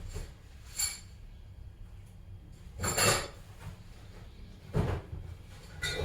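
Tools and parts being handled: a few separate clinks and knocks, the loudest about three seconds in.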